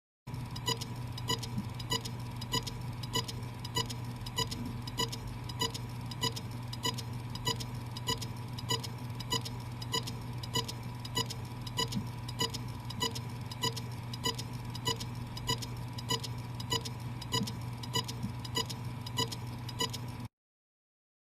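Sound effect of steady clock-like ticking, about two ticks a second, over a steady low hum. It starts and stops abruptly.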